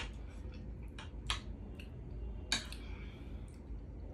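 Metal spoons clinking and scraping on a plate while people eat, with a few sharp clinks about a second apart, the loudest about two and a half seconds in.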